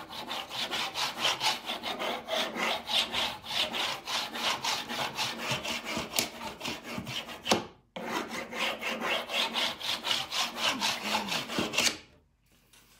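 Rub-on furniture transfer being burnished onto a painted wooden bench with a small hand tool: quick back-and-forth scratchy strokes, about five a second. The rubbing breaks off briefly once and stops about a second before the end.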